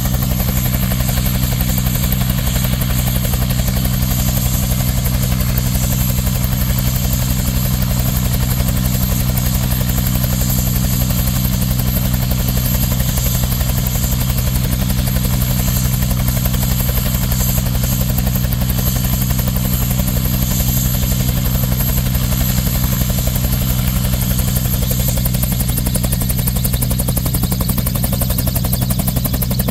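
Air ambulance turbine helicopter running on the ground with its main rotor turning: a steady low rotor beat under a high, steady turbine whine that rises slightly near the end.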